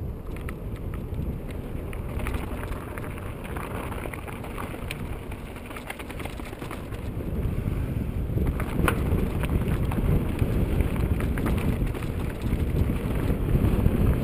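Wind buffeting the microphone over the rumble of mountain bike tyres rolling on a loose, rocky dirt trail, with scattered sharp clacks and rattles from the bike on the rocks. The rumble grows louder and rougher about halfway through.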